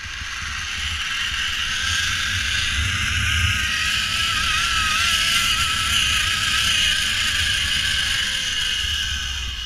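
Zipline trolley pulleys running fast along a steel cable: a steady rushing hiss with a faint wavering whine, building over the first second or two and easing off near the end as the rider slows. Gusty wind rumble on the microphone runs underneath.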